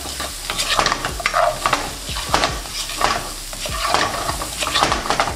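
Chips, onions and green peppers stir-frying in a wok on high heat: a spatula scrapes and tosses them in repeated, irregular strokes over a steady sizzle.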